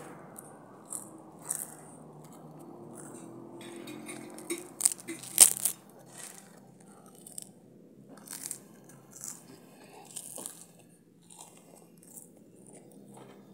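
Puffed rice cakes being bitten and chewed close to the microphone: a string of crisp, dry crunches, loudest in a quick cluster about five seconds in, then lighter crunches every second or so.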